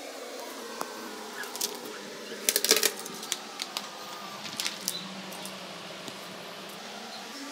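Scattered sharp clicks and light knocks of objects being handled, with a quick run of clicks about two and a half seconds in, over a steady background hiss.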